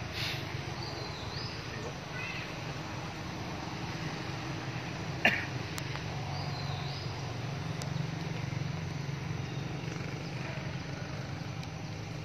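Outdoor background with a steady low hum, a short high chirping call twice, and one sharp click about five seconds in.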